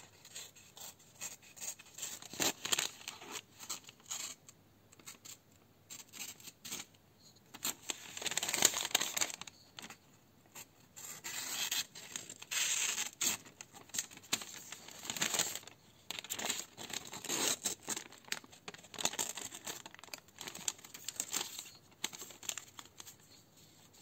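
Blunt, not-yet-sharpened grafting knife dragged and pressed through thin paper in repeated rasping strokes, the paper rustling and tearing rather than being cleanly sliced, the sign of a dull edge.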